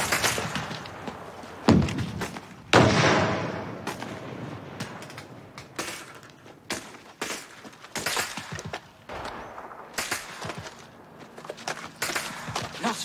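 Battle sounds of scattered gunshots with heavy explosions: two loud blasts about two and three seconds in, the second trailing off over about a second, then single shots at irregular intervals.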